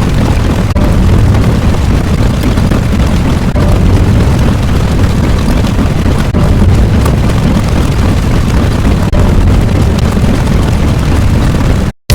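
Loud, steady deep rumbling noise, a sound effect, that cuts out suddenly just before the end.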